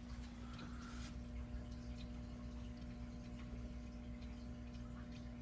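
Aquarium equipment running: a steady low hum with faint water drips and light ticks.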